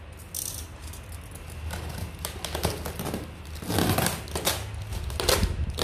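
Utility knife cutting through the plastic wrap and tape sealing a polystyrene foam box, with plastic crinkling and rustling in irregular scratchy bursts as the wrapping is pulled back.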